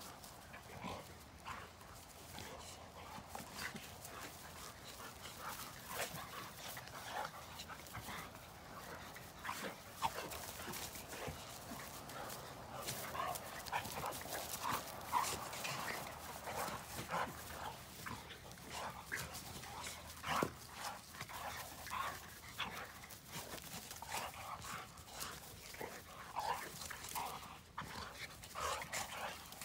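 A dog and a small black pig wrestling in play on grass: a run of short dog whimpers and yips, with occasional small barks, that grows busier and louder about a third of the way through.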